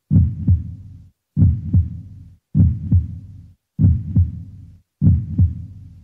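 Deep, slow heartbeat-like double thump, a lub-dub pair repeating about every 1.2 s, five times, each pair dying away before the next.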